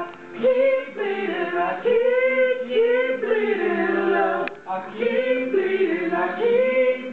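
Voices singing long, held notes.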